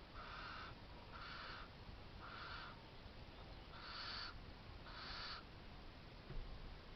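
Barn owl giving harsh, hissing screeches: five calls of about half a second each, roughly one a second, with a short pause after the third.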